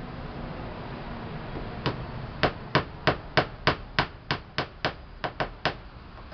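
Small hammer driving little nails into 10 mm plywood, about a dozen quick, even strikes at roughly three a second, starting about two seconds in.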